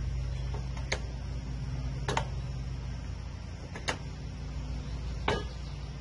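Zero-turn mower's small engine running with a steady low hum, with four sharp clicks spaced a second or more apart as the throttle control lever is worked.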